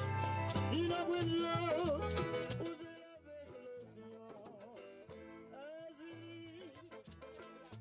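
A man singing a wavering melody with instrumental accompaniment and a steady bass line. A little under three seconds in, the music drops sharply in level and carries on more quietly.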